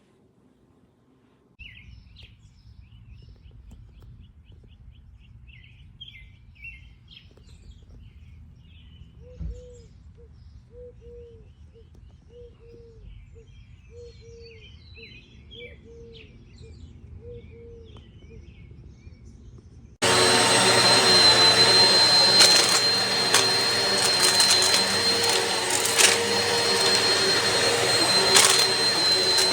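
Birds chirping, and a low call repeated many times, over a faint hum. About twenty seconds in, a Eureka PowerSpeed bagless upright vacuum cleaner switches on suddenly and runs loudly and steadily with a high whine.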